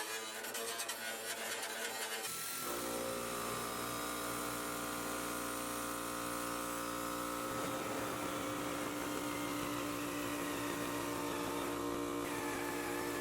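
Background music for the first two seconds, then a motor-driven power tool running with a steady hum.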